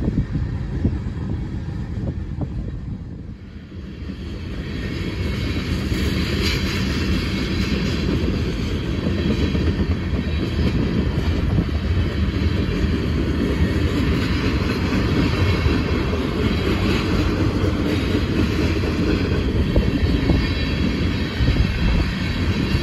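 Freight train cars (tank cars and covered hoppers) rolling past, their steel wheels rumbling on the rails in a steady, continuous noise. The sound dips briefly about three seconds in, then holds steady.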